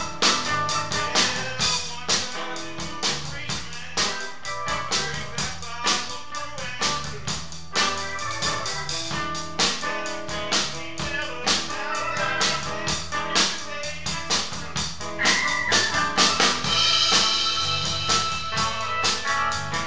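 Live band playing: a drum kit keeps a busy beat under keyboard chords, with the cymbals swelling louder near the end.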